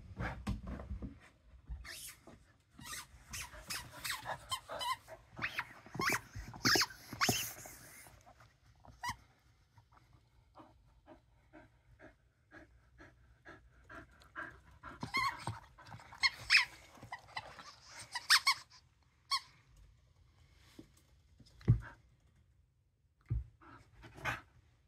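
A dog playing with a plush squeaky toy: bursts of toy squeaks and scuffling come in clusters, with quick panting in between. There is one sharp thump about twenty-two seconds in.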